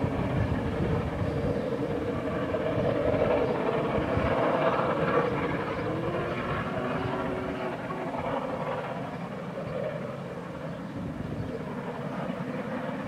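Three-cylinder LMS Royal Scot class 4-6-0 steam locomotive working under steam with its train of coaches, a continuous exhaust and running rumble that slowly fades as the train draws away.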